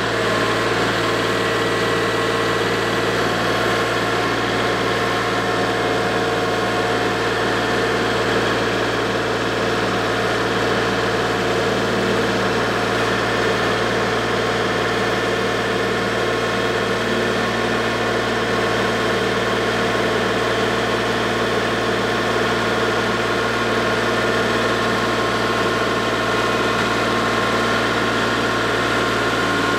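Kubota L3301 tractor's three-cylinder diesel engine running steadily at low, even speed, with no revving.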